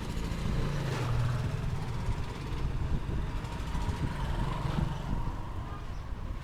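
Street ambience with a motor vehicle's engine running, a steady low rumble.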